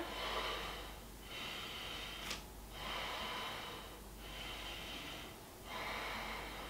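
A woman's slow, deep breathing while she holds a standing yoga pose: about five soft breaths in and out, each lasting roughly a second, with one small click a little past two seconds in.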